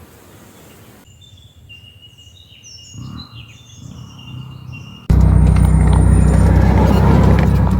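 Forest birds singing with clear whistled notes and chirps. About five seconds in, a sudden cut to the loud, steady low rumble of a vehicle being driven.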